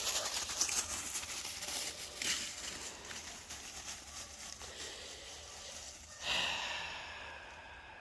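Crackling and rustling in dry leaves and sticks, with many small snaps, then about six seconds in a single breathy sigh that fades away.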